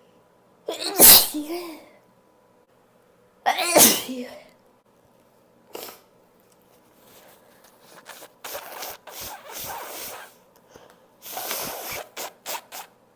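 A person sneezing openly, not holding the sneezes back: two loud sneezes about three seconds apart, each with a sharp voiced burst. They are followed by a longer stretch of quieter breathy noises and short bursts.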